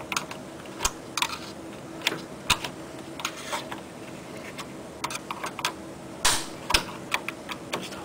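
Irregular clicks and taps of a flathead screwdriver and the plastic slider parts of a BMW panoramic sunroof mechanism as the rear glass panel mechanism is pried sideways out of its track, with one louder click about six seconds in.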